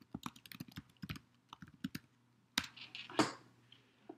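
Typing on a computer keyboard: a quick run of key clicks, then two louder knocks a little over halfway through.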